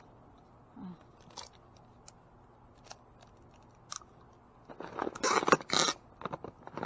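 Adhesive tape pulled off its roll twice in quick succession about five seconds in, loud and crackly, after a few faint clicks.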